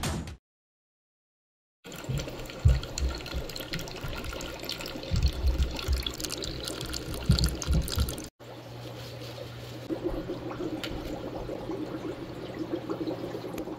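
Water running and splashing over a steady low hum from aquarium equipment, after a short silence. After a cut, water sloshing as a hand moves through a bucket of water.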